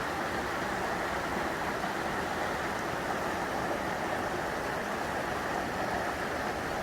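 Steady rushing noise of running water, with no breaks or single events.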